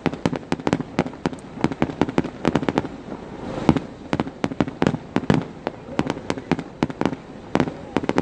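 Fireworks display going off in rapid, irregular bangs and crackles, several a second. About three and a half seconds in, a short rushing hiss builds into the loudest bang.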